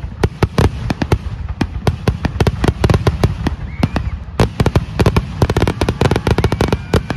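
Aerial fireworks going off in a rapid barrage of loud bangs and crackles, several reports a second, coming thickest in the second half.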